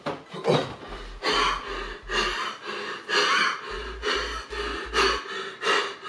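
A man breathing heavily through his mouth, loud huffing breaths in quick succession, about two or three a second.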